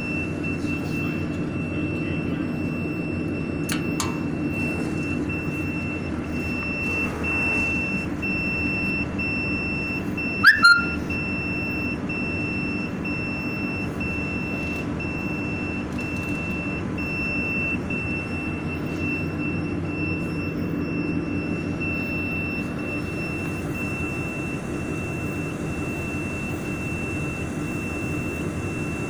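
Water chiller of a jewelry laser welding machine running with a steady hum, its alarm buzzer sounding one continuous high-pitched tone while the unit shows an error code. About ten seconds in, a brief loud knock with a short squeak.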